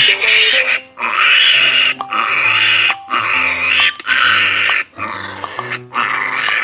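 Three-day-old piglet squealing in distress while restrained for tail docking, in repeated loud screams of about a second each, roughly one a second. Light background music plays beneath.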